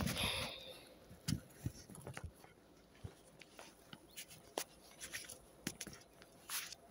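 Handling noise on a phone's microphone: a brief rustle, then scattered faint clicks and ticks as fingers shift on the wet phone.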